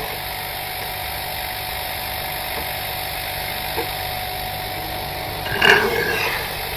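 Refrigerator compressor running steadily, sucking oil up through a pipe dipped in an oil bottle into its suction line, a constant hum with a rushing suction noise. A brief louder sound comes about five and a half seconds in.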